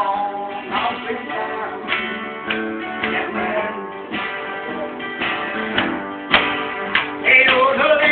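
Two acoustic guitars strumming and picking chords in a country tune, an instrumental stretch with a regular strum. Near the end a louder wavering melody line comes in over the guitars.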